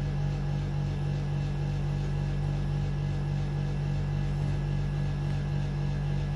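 A steady low mechanical hum with a constant drone, unchanging throughout, and a faint hiss over it.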